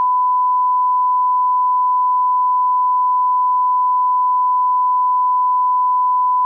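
Steady 1 kHz line-up tone that accompanies colour bars on a video master: a single pure, unwavering beep held at a constant level.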